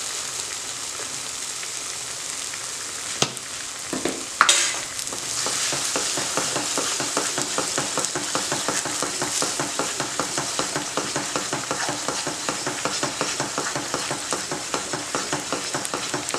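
Thick masala paste sizzling as it fries in oil in a nonstick pan, with two sharp knocks a little after three and four seconds in. From about five seconds on, a wooden spatula stirs it briskly, in a quick, even rhythm of scraping strokes over the sizzle.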